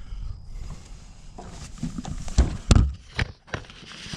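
A handful of irregular hollow knocks and thumps on a wooden dock, loudest about two and a half seconds in.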